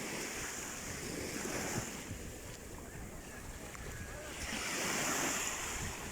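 Sea waves washing onto the shore, a steady rush that swells louder about two-thirds of the way in as a wave comes in.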